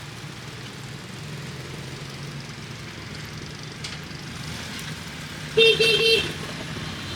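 Steady street traffic hum, broken about five and a half seconds in by a vehicle horn honking twice in quick succession, the loudest sound heard.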